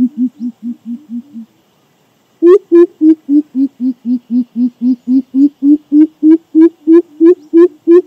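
Greater coucal (crow pheasant) giving its deep hooting call. A run of low hoots fades out, then after a short pause a long, even series of "hoop" notes follows, about three a second, which becomes louder and a little higher-pitched about six seconds in.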